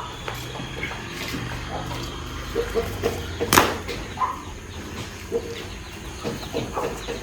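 Water splashing and dripping as an Aseel fighting rooster is washed and massaged by hand, with many small splashes, one loud sharp splash about three and a half seconds in, and a chicken's short call just after.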